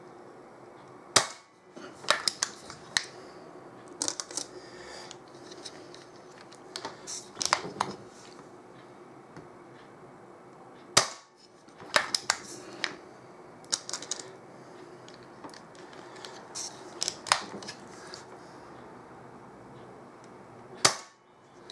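BSA Ultra CLX .22 PCP air rifle fired three times, about ten seconds apart, each shot a sharp crack. Between the shots come smaller mechanical clicks of the side-lever action being cycled and a pellet loaded into the loader.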